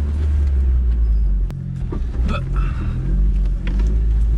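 Jeep Wrangler TJ engine running at low speed as it crawls over a forest dirt track, a steady low rumble heard from inside the cabin. A sharp knock sounds about a second and a half in, with a few lighter clicks and rattles from the body.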